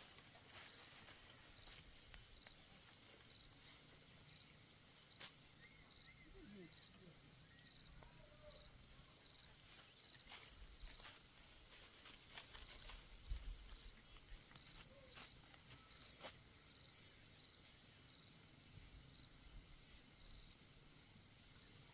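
Near quiet with faint insects chirping: a high chirp pulsing about twice a second, turning into a steady high trill about halfway through. A few faint clicks are scattered through it.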